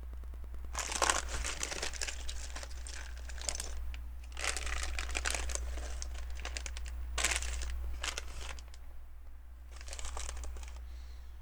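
A plastic LEGO parts bag crinkling as hands rummage through it for pieces, in four bursts with short pauses between them.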